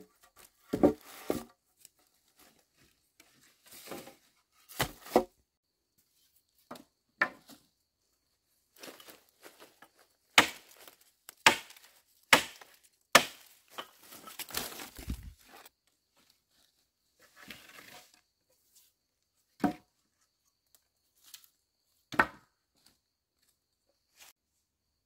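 Dry wooden sticks and branches knocking and cracking against each other as they are handled and gathered, with dry leaves crunching and rustling underfoot. The knocks come irregularly, a dozen or so sharp ones, thickest in the middle stretch.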